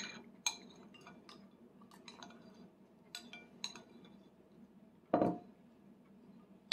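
Metal spoon clinking and scraping against a plastic divided baby plate as a small child scoops food: a handful of light, scattered clinks. About five seconds in there is one brief, louder, lower-pitched sound.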